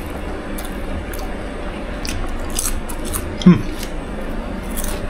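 Fingers rummaging among crisp fried grasshoppers in a plastic jar and crunchy bites, heard as scattered dry crackles. A short voiced 'mm' falling in pitch, about three and a half seconds in, is the loudest sound.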